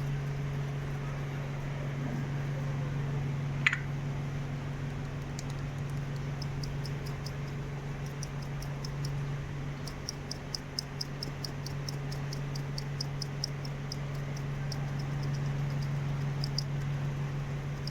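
Close-up eating sounds: chewing with many small, quick mouth clicks, after a single sharper click about four seconds in, over a steady low hum.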